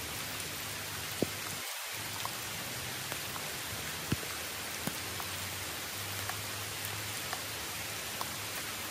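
Steady rain falling, with scattered louder drops ticking close by.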